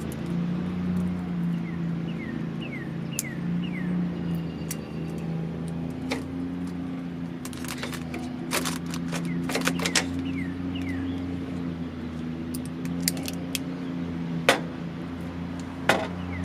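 Clear double-sided tape being handled, pulled and pressed onto a plastic LED emblem: scattered sharp clicks and crinkles of tape and plastic packaging, loudest twice near the end, over a steady low hum. A bird repeats a quick run of four falling chirps a few times.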